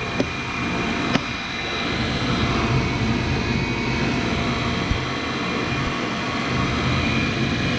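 Rheem gas furnace starting on a call for heat: a steady motor whir with a thin high whine, typical of the draft inducer running, and a sharp click about a second in.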